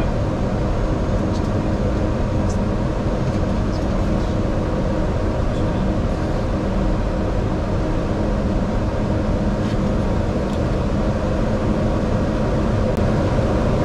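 Steady flight-deck noise of an airliner taxiing: a constant rushing hum from the idling engines and air-conditioning, with a few steady tones under it.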